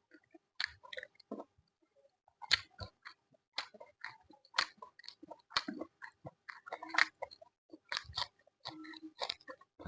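Close-miked chewing and biting of food, in irregular wet mouthfuls with a few crunches.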